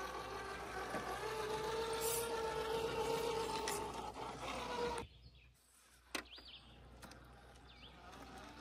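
Small RC rock crawler's motor and gears whining steadily as it drives over rock, the pitch stepping up about a second in and cutting off about five seconds in. After that, a single click and a few faint bird chirps.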